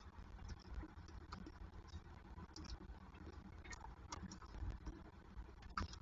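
Faint, scattered clicks and taps from young peregrine falcons feeding on a prey bird in a wooden nest box: beaks and talons working the carcass and scraping the feather-strewn floor. A few sharper taps come near the end, over a steady low rumble.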